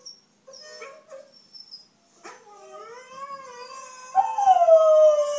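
Siberian husky howling: a loud, long howl begins about four seconds in, dips a little in pitch and then holds steady.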